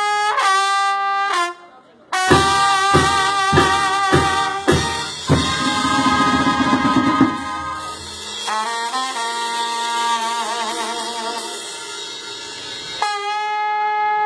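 Mexican banda brass band playing live, with trumpets, other winds and a sousaphone. A held chord breaks off briefly, then comes a run of heavy accented hits with a deep bass, a low rumbling passage, and a wavering melody, before the band lands on a sustained chord near the end.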